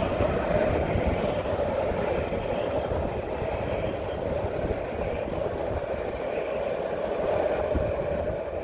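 Jerusalem Light Rail trams passing close by on street-level track: a steady rolling rumble with a continuous hum.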